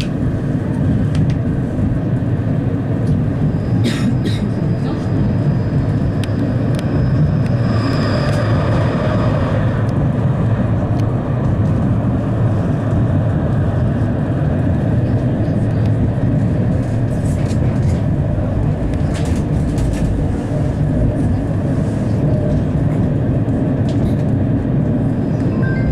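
71-931M Vityaz-Moscow tram running along the line, heard from on board: a steady rumble of wheels on rails. A thin high whine is heard through the first third or so, along with a few scattered clicks.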